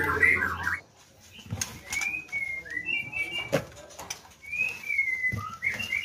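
White-rumped shamas (murai batu) in breeding cages calling in short whistled notes, some sliding in pitch, in two bursts. A few sharp knocks of the cage doors and wire mesh being handled come in between.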